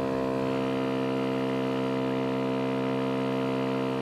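Motorcycle engine running at steady revs while cruising at about 60 miles an hour, its pitch holding constant without rising or falling.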